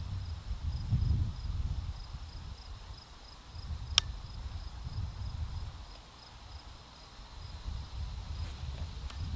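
Crickets chirping in steady, evenly pulsed high chirps, with wind rumbling on the microphone. One short sharp crack about four seconds in.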